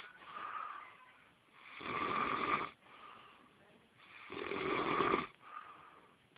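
A man snoring in his sleep: two loud, rough snores, the first about two seconds in and the second about four and a half seconds in, with quieter breaths between them.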